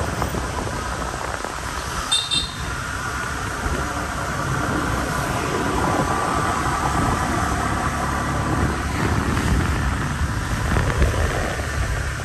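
A motorbike running while being ridden along a street, with steady road and wind noise; a short high chirp about two seconds in.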